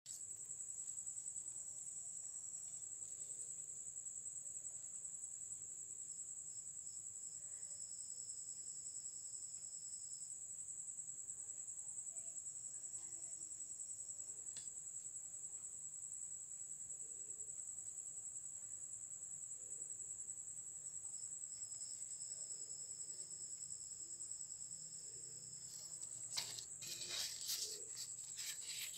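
Crickets trilling: one steady, high-pitched trill throughout, with a second, lower trill coming and going. A few clicks and rustles near the end.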